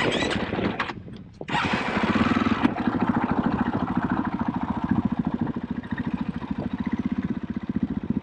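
KTM 500 EXC-F single-cylinder four-stroke engine. A short rush of noise comes at the start, then from about a second and a half in the engine runs steadily under throttle with an even, rapid pulse.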